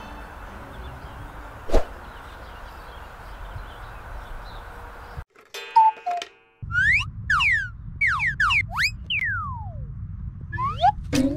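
Outdoor garden ambience with a low steady rumble and one sharp click. After a brief drop to silence, birds sing: a run of loud whistled notes, most sliding down in pitch, some overlapping, over the last few seconds.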